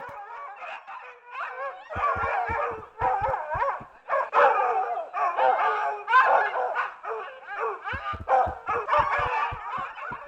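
Several dogs barking, yelping and howling in repeated pitched calls. Short low thuds come in a cluster about two seconds in and again near the end.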